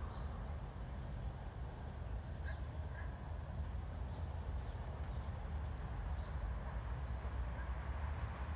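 Outdoor ambience: a steady low rumble of wind on the microphone, with faint, brief bird chirps scattered through.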